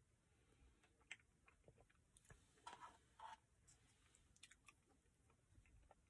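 Near silence, broken by faint scattered clicks of a red plastic spoon against a paper Dairy Queen Blizzard cup and quiet eating sounds, with a couple of slightly louder ones near the middle.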